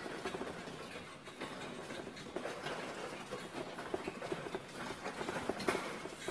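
A wheeled sleigh prop on small caster wheels rolling and rattling across a hard floor as it is hauled by a rope and chain harness and pushed from behind. There is a steady clatter with many small irregular clicks.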